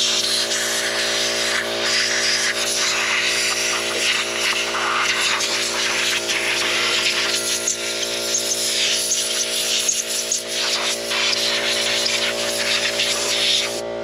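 Compressed air hissing from a handheld air blow gun, coming in uneven gusts as it blows dirt off metal parts. It cuts off abruptly near the end.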